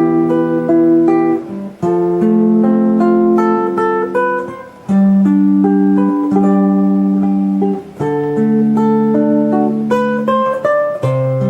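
Instrumental music: a slow run of sustained chords that change every second or two, with brief dips between phrases.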